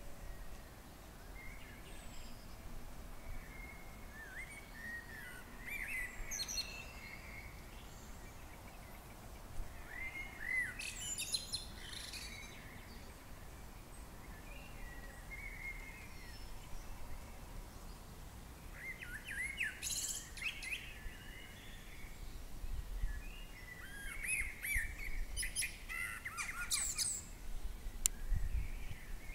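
Small birds chirping in short bursts of quick high calls and glides, a few seconds apart, over a faint low background rumble.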